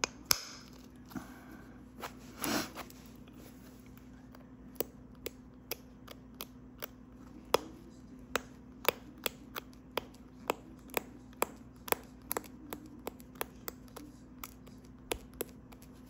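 Flint knapping on heat-treated Flint River chert: a run of short, sharp clicks of tool on stone edge, a few scattered at first, then about two or three a second.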